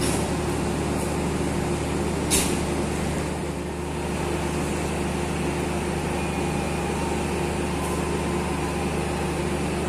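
Steady low hum of a stationary diesel passenger train idling, with one sharp click about two and a half seconds in.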